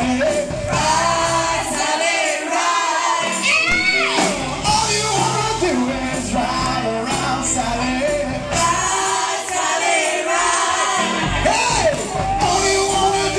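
Live band playing amplified music, with a man and women singing into microphones over electric guitar and bass. The deep bass drops out twice for about a second.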